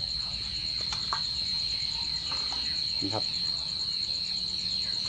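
Crickets trilling steadily in one continuous high note, with a couple of faint clicks about a second in.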